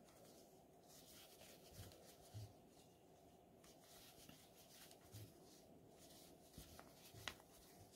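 Near silence, with faint rubbing of yarn against a metal crochet hook as single crochet stitches are worked, and a few soft taps.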